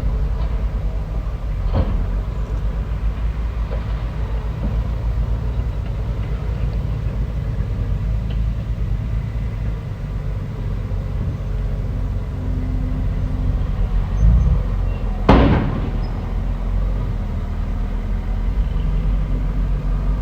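Bulldozer's diesel engine running steadily, with a single sharp knock about three-quarters of the way through.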